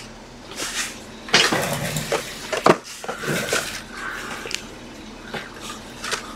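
Cardboard trading-card boxes being handled and set on a shelf: rustling slides and several knocks, the sharpest about two and a half seconds in.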